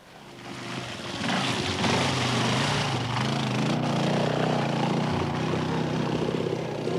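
Enduro motorcycle engine running under load as the bike pulls through mud, its pitch wavering up and down with the throttle. It swells in over the first second or so, then holds steady.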